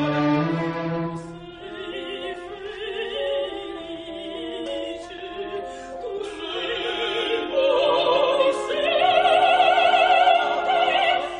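Operatic soprano singing with wide vibrato over an orchestra with strings. The voice is softer at first, then swells about two-thirds of the way in to loud, sustained high notes.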